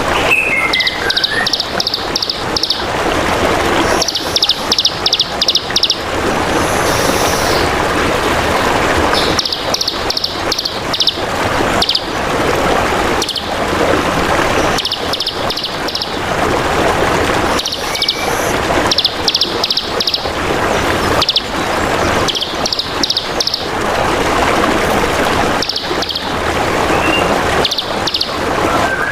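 A songbird singing short, rapid high trills of quick repeated notes every few seconds, with a few brief whistled glides, over the steady rush of trickling water.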